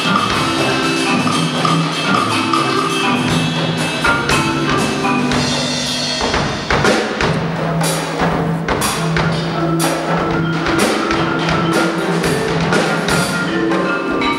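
Live percussion ensemble music on drum kit, marimba and other mallet percussion, with held pitched notes over a moving bass line. Sharp drum and cymbal strikes come through more strongly from about halfway through.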